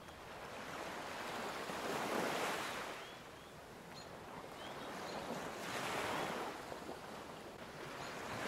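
Background track of gentle surf: soft rushing noise that swells and ebbs about every four seconds as waves wash in.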